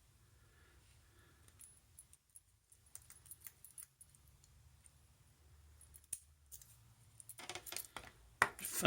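Faint metallic clicks and scrapes of a lock pick and tension wrench working inside a small Yale 25 mm brass padlock, growing into louder clicking and rattling near the end.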